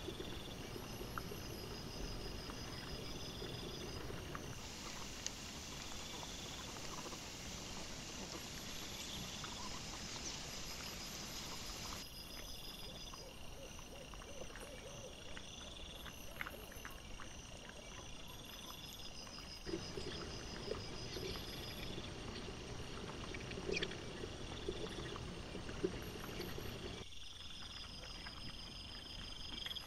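Outdoor night ambience from a trail camera: insects chirping in a repeating pattern over a steady hiss. Scattered clicks and rustles come from wild boar and piglets rooting and feeding. The background changes abruptly several times as one recording cuts to the next.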